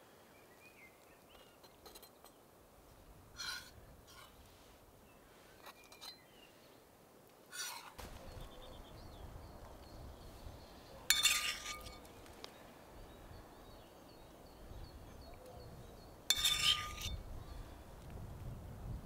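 A spoon clinking against a pan and dishes while pastry toppings are served: a few light clicks, then two louder ringing clinks about five seconds apart.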